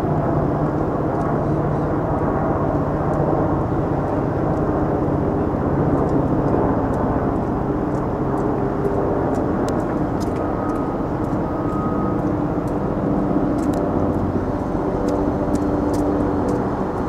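Steady city traffic and engine rumble, even in level, with a few held engine tones running under it.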